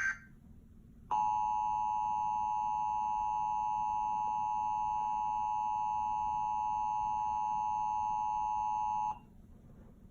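Emergency Alert System attention signal: the two steady tones of 853 and 960 Hz sounding together for about eight seconds, starting about a second in and cutting off sharply. It announces that an emergency message follows. The tail of a SAME digital header burst ends at the very start.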